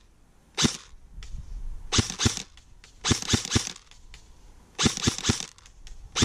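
King Arms Black Rain Ordnance airsoft electric gun (AEG) firing sharp single shots in quick short strings: one shot, then two, then two strings of three.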